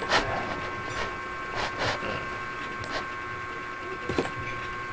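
A computer mouse clicking a few times at irregular intervals over a steady faint electrical hum with a thin high whine.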